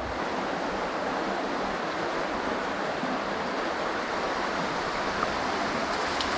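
Steady rush of creek water.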